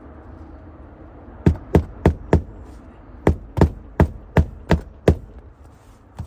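Hammer striking a roofing nail to fasten an asphalt shingle back down: four quick blows, a short pause, then six more, at about three a second.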